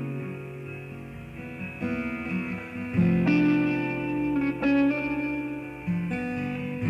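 Background music: a guitar instrumental with plucked notes, new chords coming in every second or so.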